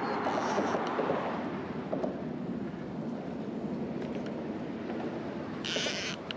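Steady rushing of wind and passing road traffic, with two brief high-pitched hissing buzzes, one about half a second in and one near the end.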